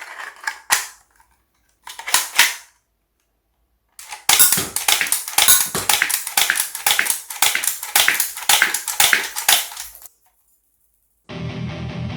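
Toy G17 pistol firing semi-automatically, a rapid run of sharp snaps about three a second, after a few separate clicks from handling its mechanism. Music starts near the end.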